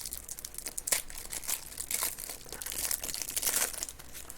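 Trading cards being handled and flipped through by hand, with crinkling and a run of short sharp clicks as cards slide and snap against each other.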